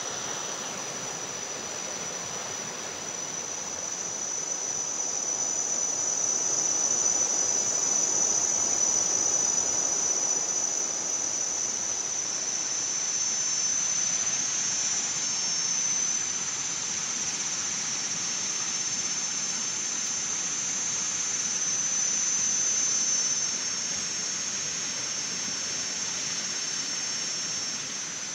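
Rushing water of a swollen, muddy stream, loudest in the first half, under a steady high-pitched insect chorus that runs throughout.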